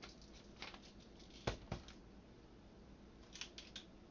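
Light clicks and taps of measuring spoons and spice containers while whole spices are spooned out, with a sharper click about a second and a half in and a quick run of small clicks near the end.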